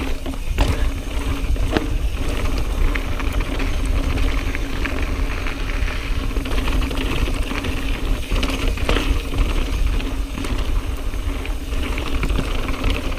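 YT Jeffsy full-suspension mountain bike ridden over rocky dirt singletrack: tyres crunching over stones, with the chain and parts rattling continuously and sharp knocks as it hits rocks. Wind rumbles on the camera microphone throughout.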